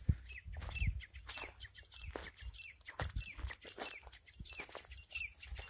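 A small bird chirping over and over in short, falling high notes, two or three a second. Footsteps crunch through dry scrub and wind rumbles on the microphone underneath.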